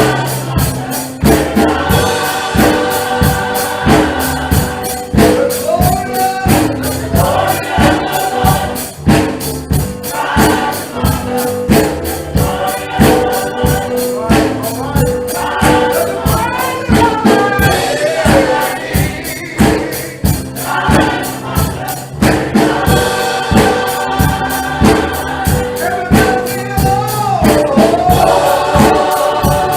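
Church choir singing a gospel song with a band, tambourine and drums keeping a steady beat.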